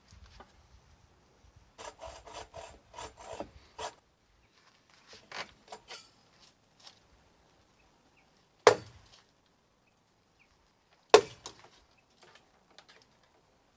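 Hand saw cutting dead tree wood in short back-and-forth strokes, in two runs, several strokes a second. Then two loud, sharp cracks about two and a half seconds apart.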